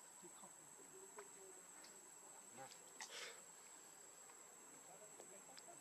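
Near silence with a faint, steady, high-pitched insect drone, and one brief soft noise about three seconds in.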